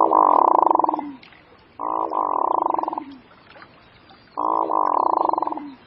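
Hooded merganser calling three times: drawn-out rolling calls about a second each, each trailing down in pitch at the end.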